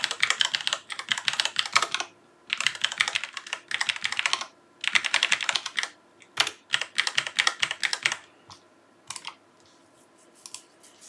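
Typing on a Bluetooth computer keyboard: several quick runs of loud key clicks with short pauses between them, then a few single clicks near the end.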